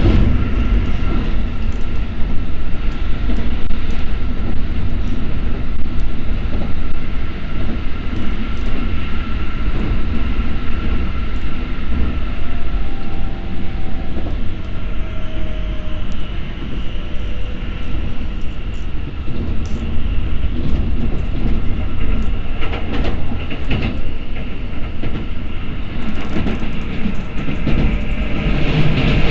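Keikyu 1000 series electric train running, heard from inside the car: a steady rumble of wheels on rail with a faint whine from the Toyo IGBT-VVVF traction equipment. Clusters of clicks from the wheels crossing rail joints come about three-quarters of the way in.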